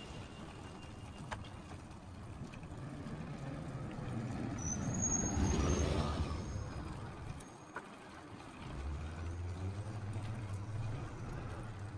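Road traffic heard from a moving bicycle: a motor vehicle passes close by, rising to its loudest about five to six seconds in and then fading, followed by a steady low engine hum near the end.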